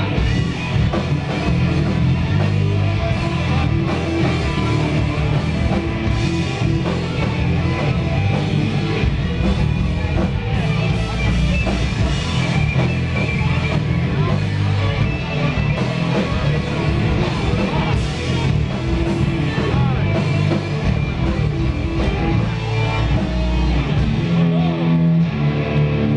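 A live hard rock band playing loudly without a break: distorted electric guitars over bass and a drum kit.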